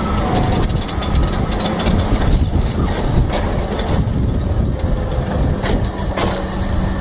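Crawler bulldozer's diesel engine running and its steel tracks clanking as it goes down a steep slope of loose rock, with rocks cracking and rattling under it.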